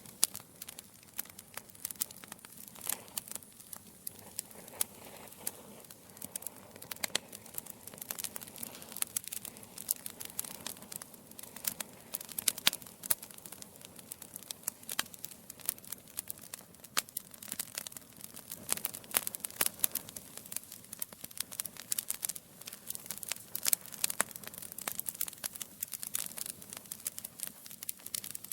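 Burning wood logs crackling and popping in a fireplace: a dense run of irregular sharp snaps over a soft rustle of flame.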